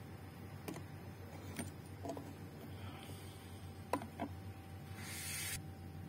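A few faint clicks and taps, then a short hissy rustle about five seconds in, over a low steady hum. This is handling noise as multimeter probes are positioned on an amplifier circuit board.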